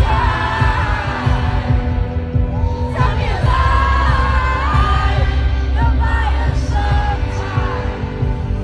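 Live pop song played through a concert PA: a woman's voice sings a bending melody over a backing track with a heavy bass.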